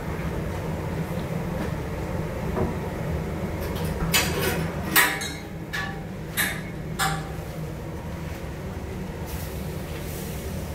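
A steady low kitchen hum, with a handful of short, sharp clatters about four to seven seconds in, like utensils or containers being knocked or set down.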